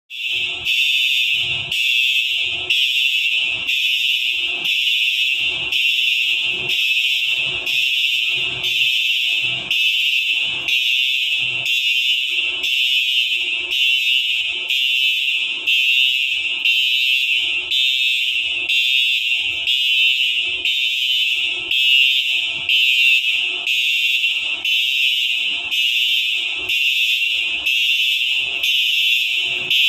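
Fire alarm sounder going off during a test: a loud, shrill, continuous alarm tone with a regular pulse about one and a half times a second.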